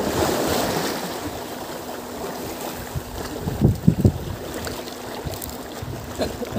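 Wind on the microphone and water lapping around a small boat, with a few dull bumps a little past halfway as a landing net is swung out and dipped into the water.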